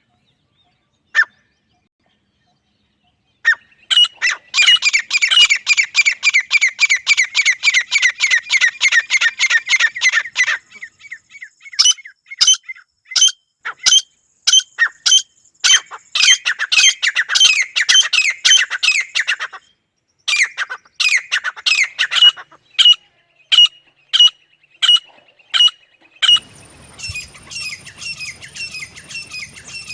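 Grey francolins calling: a rapid run of shrill, sharp repeated calls, then slower calls about one to two a second. Near the end the calls turn fainter over a steady high whine and a low hum.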